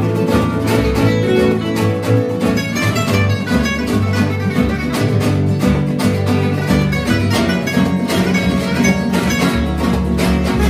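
Gypsy jazz played on two acoustic guitars and a double bass: one guitar picks a melody high on the neck over a steady strummed rhythm from a Selmer-style cutaway guitar, with plucked bass notes beneath.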